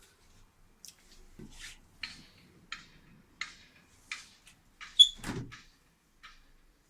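Light, regular knocks about one every 0.7 seconds, then a sharp metallic clink followed by a dull thud about five seconds in, as of objects being handled and set down.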